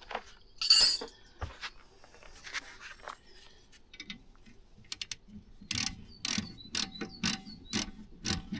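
A 17 mm spanner working a rear brake caliper bolt loose: a series of sharp metallic clicks and clinks, with a run of evenly spaced clicks near the end.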